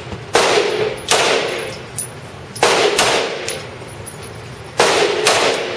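Single gunshots at an indoor shooting range, about six over the stretch, fired at uneven intervals, each with a long echoing ring-out off the range walls.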